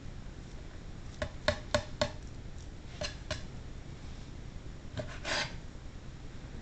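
Knife clicking against a cutting board while trimming fat off raw chicken breast: a quick run of four ticks about a second in, two more around three seconds, and a short scrape a little after five seconds.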